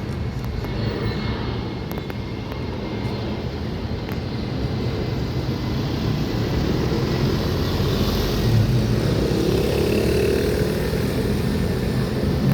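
Airliner jet engines running, a steady rushing noise with a low hum that slowly grows louder.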